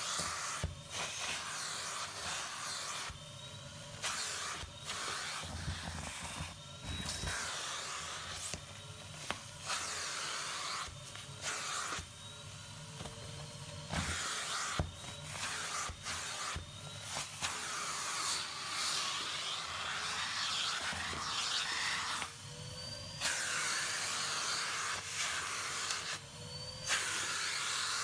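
Vacuum cleaner running, its crevice nozzle sucking dust and fluff off a clogged cloth filter; the hiss of the suction cuts in and out irregularly. Electronic background music plays underneath.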